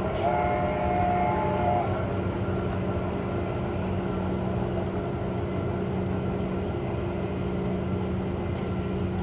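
Garden-scale model trains running on outdoor track, with a steady mechanical hum and rumble throughout. A horn sounds once near the start for about a second and a half.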